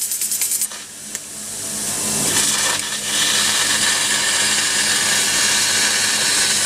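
Fiber laser cutter's cutting head on 12 mm carbon steel: a rapid pulsing hiss stops under a second in, then the gas-and-spark hiss of the cut builds over about a second and a half into a steady, loud, high hiss. This is the pulsed pierce through the plate giving way to continuous cutting.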